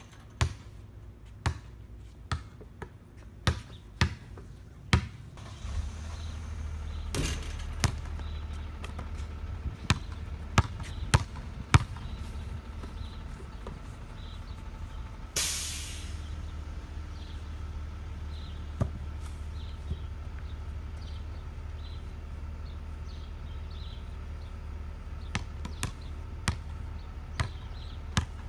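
Basketball bouncing on an asphalt driveway: a series of sharp thuds, about one a second at first, then scattered, with one louder crash about halfway through.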